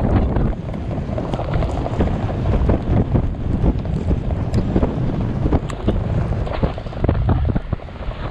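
Wind buffeting the microphone of an action camera carried on a galloping horse, a loud rough rumble, with irregular dull thuds of horses' hooves striking sand underneath.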